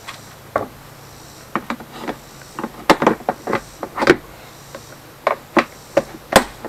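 Broken plastic wheels being pried and popped off the base of a Husky air compressor: a run of irregular sharp plastic clicks and snaps, the loudest about three, four and six seconds in.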